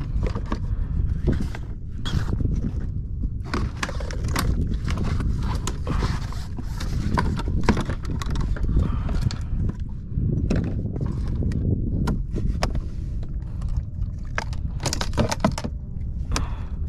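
Irregular clicks and knocks of gear being handled against a plastic fishing kayak, over a steady low rumble of wind on a body-worn camera's microphone.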